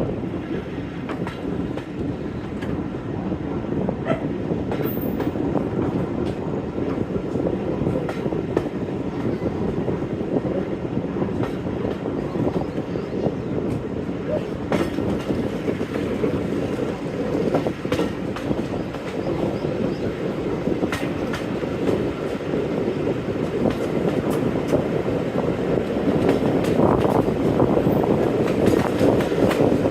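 Train running on the line behind a Class 45 diesel-electric locomotive: a steady rumble with wheels clicking over rail joints here and there, growing a little louder near the end.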